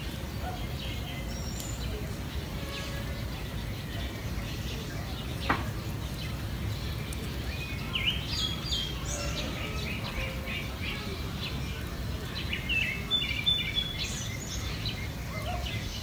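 High, short chirps of nestlings begging while the parent bird feeds them, in clusters about eight seconds in and again around twelve to fourteen seconds in, over steady low background noise. One sharp click about five and a half seconds in.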